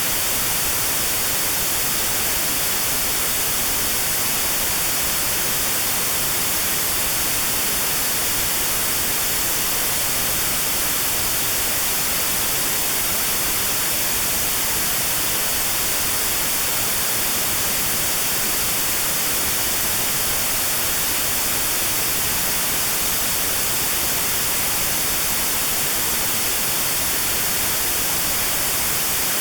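Steady white noise with a narrow band around 4 kHz cut out: notched sound therapy aimed at 4 kHz tinnitus. It is even and unchanging, brightest in the treble, with no other sound.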